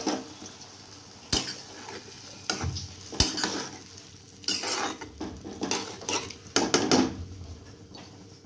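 A cooking spoon stirring prawns and pointed gourd in a pan of thin curry, scraping along the pan in short strokes, with a few sharp knocks against the rim.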